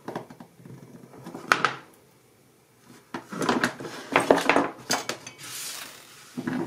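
Clicks and knocks of small pliers and a beaded wire cross being handled and set down on a work table, with a short pause about two seconds in and a busier run of clicks after it.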